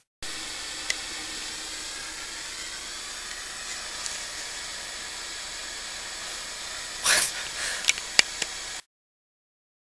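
Steady hiss of television static. A short louder burst comes about seven seconds in, then a few sharp clicks, before the sound cuts off to silence.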